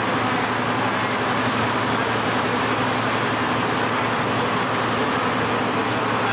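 Steady noise of garment-factory machinery: an even whir with a low hum underneath, unchanging throughout.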